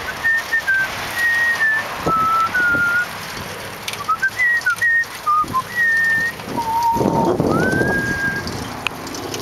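A person whistling a tune: a string of clear held notes stepping up and down, with a rising slide into a long held note near the end.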